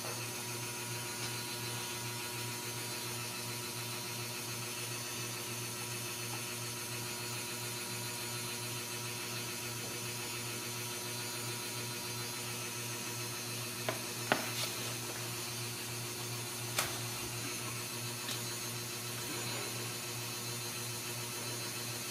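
Steady machine hum with hiss, with a few faint clicks in the second half.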